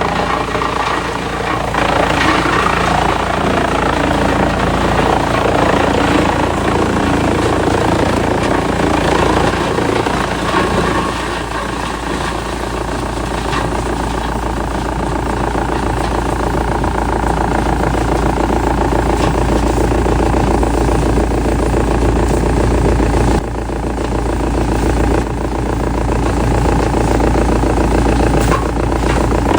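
Heavy wood-processing machinery running with a loud, steady engine drone and churning mechanical noise. The sound changes abruptly about 23 seconds in.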